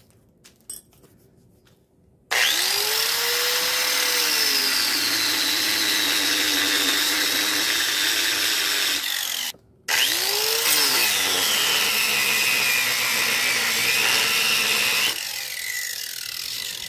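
Corded electric angle grinder switched on with a rising whine and cutting into a wooden board, its pitch sagging under the load of the cut. It stops briefly about halfway through, starts up again with a second rising whine, and winds down near the end.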